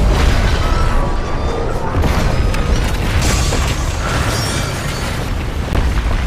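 Movie sound effects of a train crash: loud continuous rumbling and booming impacts, mixed with dramatic film music.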